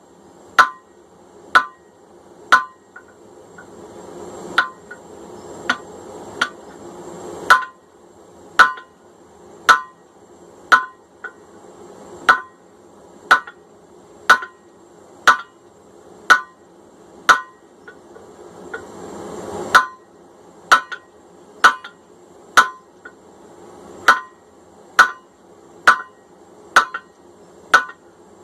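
A hand hammer striking a hot 1045 steel hammer head on an anvil, about one blow a second with a few short pauses. Each strike is sharp with a brief metallic ring, and a steady low rush fills the gaps between blows.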